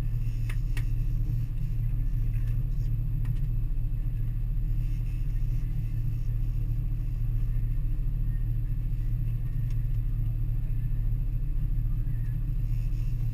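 Twin outboard motors running at slow trolling speed, a steady low drone, with a few light clicks in the first second.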